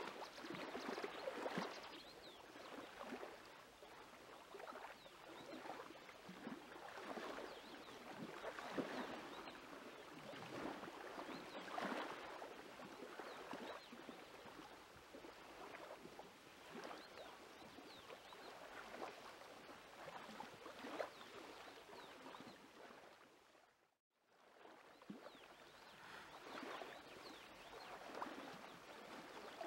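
Faint, irregular lapping and washing of small lake waves on the shore, which cuts out briefly about 24 seconds in.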